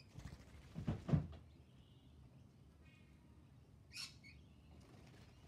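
Two low thumps about a second in, the loudest sound here, then a single short, harsh call from a rainbow lorikeet about four seconds in.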